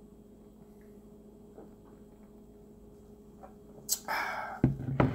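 A man swigging from a bottle: a few soft swallowing clicks over a faint steady hum, then about four seconds in a loud breathy exhale and a low voiced "aah" as he finishes the drink.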